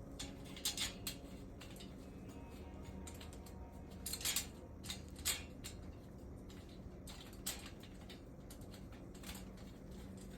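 Parts of a power tool rack clinking and knocking as they are handled and fitted together: a few sharp clicks and taps, in small clusters about a second in, around four to five seconds in, and once near seven and a half seconds, over a steady low hum.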